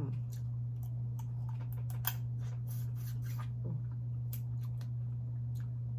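Cold cooked blue crab shell being cracked and picked apart by hand: a scattered series of sharp snaps and clicks, the loudest about two seconds in, over a steady low hum.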